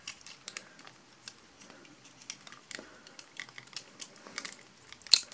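Plastic parts and joints of a Masterpiece Hot Rodimus transforming toy figure clicking and rubbing as it is handled and folded, a scatter of small irregular clicks with one sharper snap about five seconds in.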